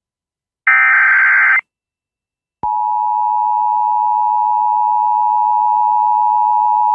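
Emergency Alert System tornado warning: a harsh one-second burst of SAME header data, a second of silence, then the EAS two-tone attention signal (853 and 960 Hz together) starting and holding steady.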